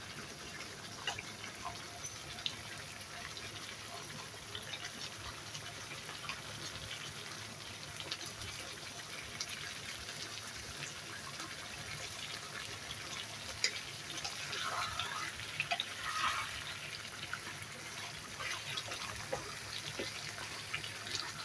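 Tomato-based chicken stew simmering in a pan: the thick sauce bubbling with a steady hiss and many small pops, a few louder bursts of bubbling about two-thirds of the way through.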